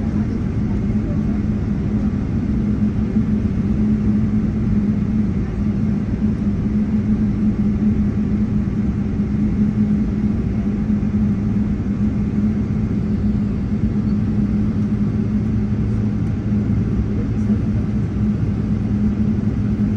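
Boeing 777 cabin noise while taxiing: a steady engine drone with a low, even hum, heard from inside the cabin.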